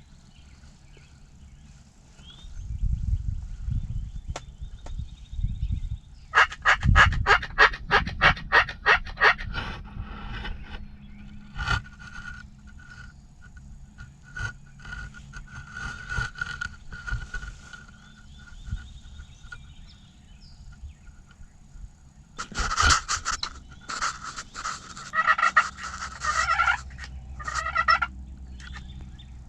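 Wild turkey calling: a quick run of sharp yelps about six seconds in, scattered calls after it, and a second dense run of calls near the end, with low rumbling underneath at times.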